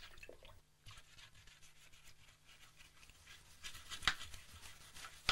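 Soft footsteps, a few separate taps starting about four seconds in, over a faint low steady hum.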